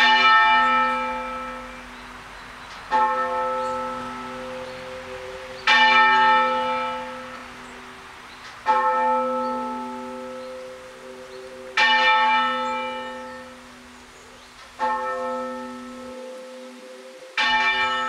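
A single church bell tolled half-muffled as a mourning toll: seven strokes about three seconds apart, a clearer stroke alternating with a duller, muffled one, each ringing on and dying away before the next.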